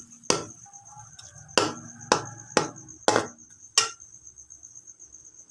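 A metal ladle clinking and scraping against a metal cooking pot, about six sharp knocks a second or so apart, as sliced onions are stirred in hot oil. A faint, steady, high pulsing chirp runs underneath.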